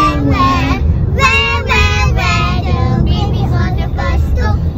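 A child singing a melody over a steady low rumble of road noise inside a moving car.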